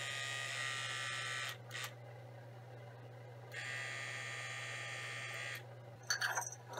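Motorized pipette controller's small pump buzzing as it moves sterile media through a glass pipette into culture tubes: one run of about a second and a half, a two-second pause, then a second run of about two seconds. A few light clicks near the end.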